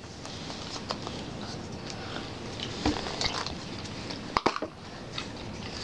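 Faint rustling and small clicks of foil wrappers and plastic toy capsules being handled, with one sharp click about four and a half seconds in.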